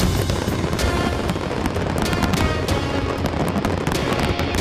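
Dense aerial fireworks barrage: a continuous low rumble of booming bursts with many sharp cracks in quick succession, over music.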